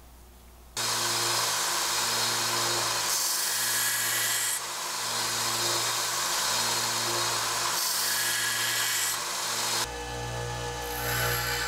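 A belt sander starts up under a second in and runs steadily, with spells of harsher grinding as a broadhead on an arrow shaft is pressed to the belt. Near the end it gives way to a 6-inch bench grinder running, with a broadhead held to its wheel.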